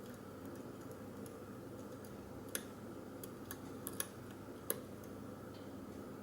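Small metallic clicks of a lock pick and tension wrench working the pin stack of a 50 mm padlock, a handful of sharp ticks between about two and a half and five seconds in, as the pick lifts pins after the lock was reset from an overset pin.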